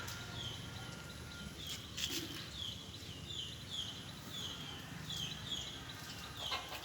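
A bird calling over and over in short, falling chirps, about two to three a second, over a low background rumble with a few scattered knocks.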